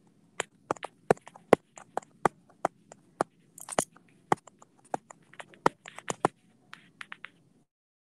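A quick, irregular series of sharp clicks and taps, several a second, over a steady low hum that cuts off near the end.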